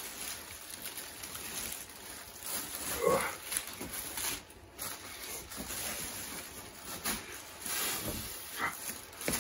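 Protective plastic bag crinkling and rustling around a heavy subwoofer as it is pushed and rolled over, with a man's short grunts of effort, about three seconds in and again near the end.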